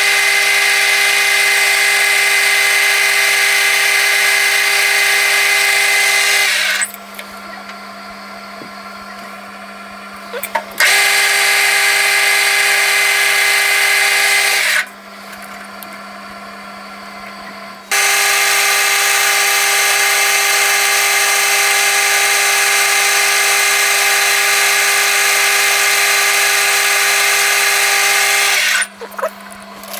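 Metal lathe cutting a metal workpiece with a parting tool. Three spells of loud, steady, high-pitched ringing while the tool is in the cut, each stopping suddenly, about seven and four seconds long with a longer one from about eighteen seconds in. Between the cuts only the lathe's motor hum is left.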